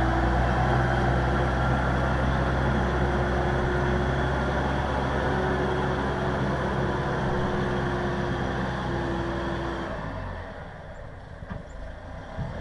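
Everun ER1500F compact wheel loader's engine running steadily while plowing heavy wet snow, with a steady whine on top. The engine sound drops away about ten seconds in, leaving a couple of faint knocks.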